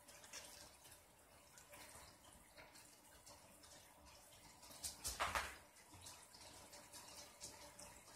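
Faint small clicks and taps of tiny screws and RC car parts being handled by hand, with one brief louder rush of noise about five seconds in.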